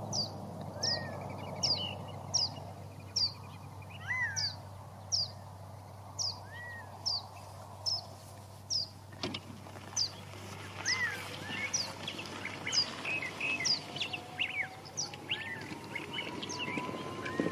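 Small songbirds calling in the surrounding trees: one repeats a short, high, falling note about once a second, with lower arched whistles now and then and a busier run of chirps joining in after about ten seconds. A faint drone rises slowly in pitch in the second half, and a single sharp click sounds just past halfway.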